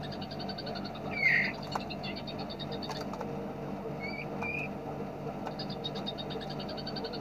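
Small songbirds: a very fast, even, machine-gun-like high trill that breaks off about half a second in and resumes near the end. A loud single chirp comes about a second in and two short chirps around the four-second mark, over a steady low background hum.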